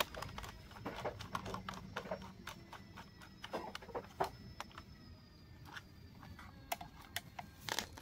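Small screwdriver clicking and scraping against the terminal screws of switchboard switches as they are tightened, with wires being handled: irregular small clicks and scratches, busiest about halfway through and again near the end. A faint steady high tone sits behind them.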